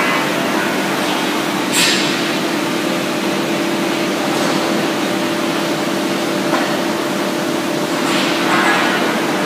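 Abbey Etna 4-inch tube mill running: a steady machine drone with a constant low hum. Short hisses come about two seconds in and again near the end.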